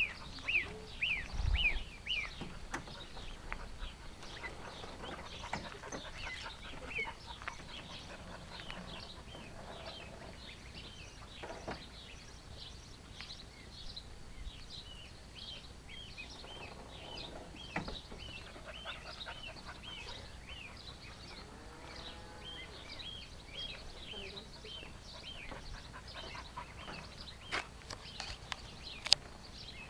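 Small birds chirping over and over in short, high, downward-sliding notes. About two-thirds of the way through comes a short call that rises and falls in pitch, and near the end there are a couple of sharp clicks.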